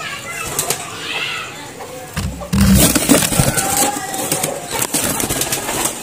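Domestic pigeons cooing, loudest with a low coo about two and a half seconds in, among scattered knocks and rustles.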